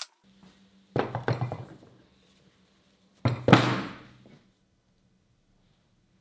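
Two clusters of heavy metal thunks from steel lathe chuck parts being handled, about a second and three and a half seconds in. Each is a few quick knocks that ring out briefly, and the second is louder.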